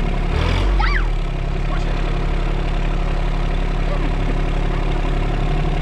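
Engine of an RK compact tractor running steadily at low speed as the tractor drives slowly. About half a second in, a brief rising-and-falling high sound rises over the engine.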